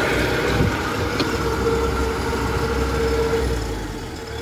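Kubota DC-93 Extra combine harvester's diesel engine running as the machine drives past on its rubber tracks, a steady low rumble with a steady whine over it, getting quieter near the end as it moves away.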